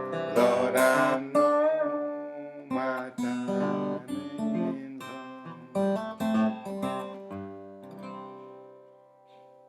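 Acoustic guitar playing the ending of a country-blues song: picked notes and strummed chords, then a last chord that rings out and fades away over the final couple of seconds.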